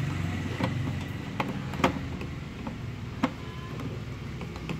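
Sharp plastic clicks and knocks as a bulb socket is pushed and twisted into the back of a plastic car tail lamp housing: several single clicks, the loudest about two seconds in and another a little after three seconds. A steady low engine hum runs underneath.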